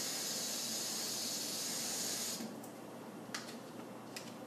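Kitchen faucet running water into a plastic shaker bottle, a steady rush that shuts off abruptly about two seconds in, followed by a few light clicks.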